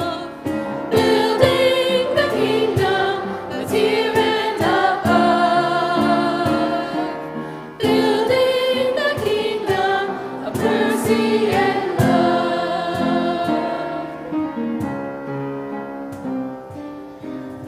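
A school choir of children singing a hymn to strummed instrumental accompaniment, the music dying away near the end.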